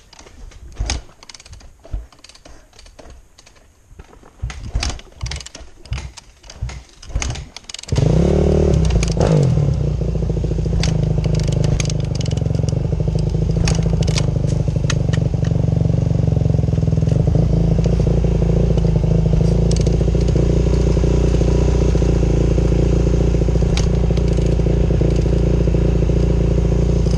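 Irregular clattering and knocks, then about eight seconds in a Yamaha YZ450F's single-cylinder four-stroke engine starts with a short rev and runs steadily at low revs.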